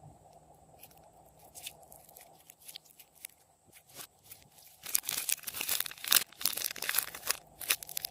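Glossy slime with hard candy mixed in being worked by hand: sticky, crackling clicks and crunches, sparse and faint at first, then dense and louder from about five seconds in.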